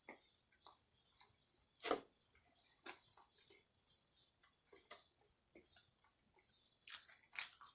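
Faint, scattered wet clicks and smacks of a mouth chewing food, a few louder ones about two, three and five seconds in and a quick pair near the end.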